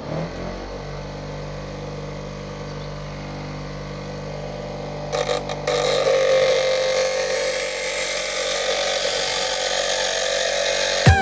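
Bench grinder motor starting and running with a steady hum. About five seconds in, a steel kitchen-knife blade is pressed to the wheel and a louder grinding hiss sets in.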